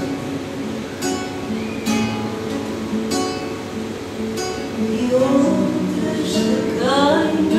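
A Portuguese guitar and a classical guitar play a plucked fado accompaniment, with a woman's voice singing again near the end.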